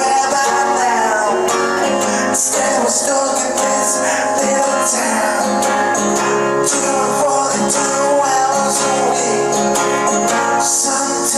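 A song played on strummed guitar, with a gliding melody line over it and a light, steady high percussion.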